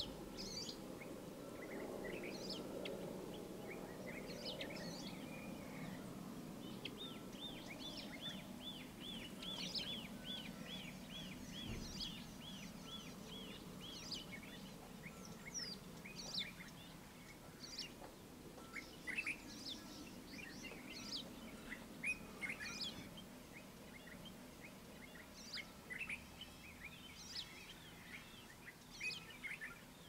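A dawn chorus of several birds chirping and calling. Partway through, one bird repeats a quick series of arched notes, about three a second, for several seconds. Under the birds is a low background rumble, stronger in the first half.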